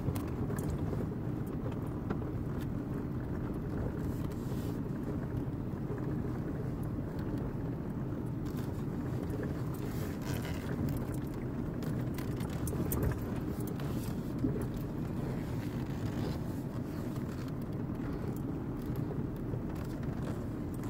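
Inside the cabin of a vehicle driving slowly over a dirt road: a steady low rumble of engine and tyres, with scattered light clicks and rattles.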